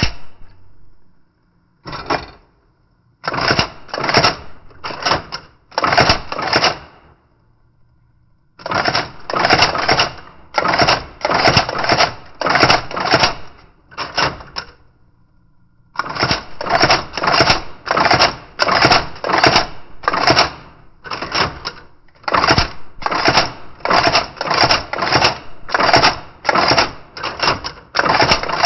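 IBM Selectric III electric typewriter being typed on: quick runs of sharp key and typeball strikes, several a second, broken by short pauses between runs.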